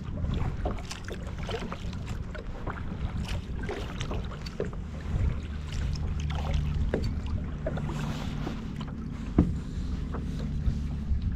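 Small splashes and lapping of water against a plastic kayak hull, with wind rumbling on the microphone. A sharper knock comes about nine seconds in.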